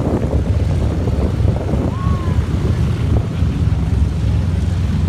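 Vintage single-engine propeller plane's piston engine running steadily at low power as the aircraft taxis away.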